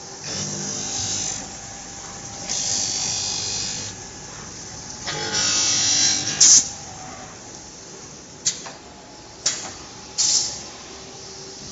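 CNC glass corner grinding machine at work: a steady machine hum broken by three bursts of grinding noise, each about a second or a second and a half long, followed in the second half by several sharp clicks, two of them trailing into short hisses.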